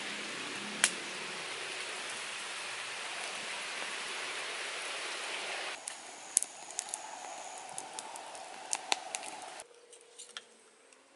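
A steady hiss for the first half, then a small wood fire crackling with sharp pops under a spit-roasting quail, going quieter with only a few faint crackles near the end.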